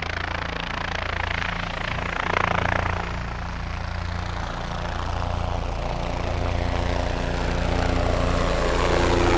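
AH-64 Apache attack helicopter flying past: a steady drone of rotor blades and twin turboshaft engines, growing somewhat louder toward the end.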